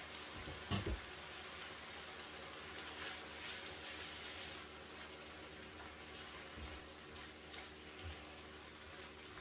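Vegetable sauce with carrots sizzling and simmering in a frying pan, a steady hiss, while a spoon stirs it. There is a sharp knock about a second in, and a few soft knocks near the end.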